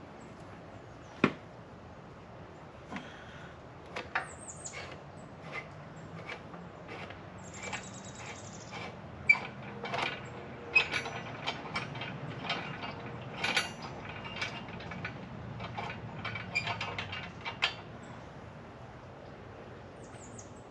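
Hard parts and packaging being handled: scattered clicks, taps and light knocks, busiest in the middle, with a brief fine ratcheting run of rapid ticks about eight seconds in.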